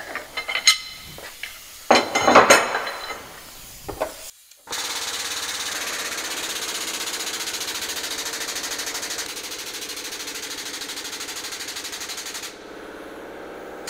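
Steel flat bar clinking against the press brake's tooling as it is set in place, then an air-over-hydraulic pump running with a rapid, steady buzzing rattle for about eight seconds as the ram bends the bar. It drops to a quieter level near the end.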